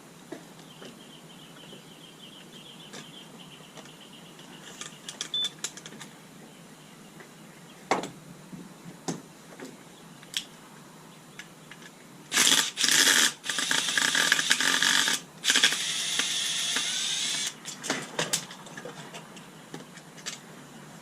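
Clicks and knocks of small parts being handled and fitted. About twelve seconds in comes a loud rasping noise lasting roughly five seconds with two short breaks, then a few more knocks.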